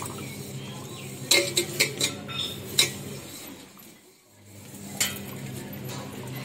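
A handful of sharp clinks and clicks, most in a quick run between about one and three seconds in, with one more about five seconds in, over a steady low hum.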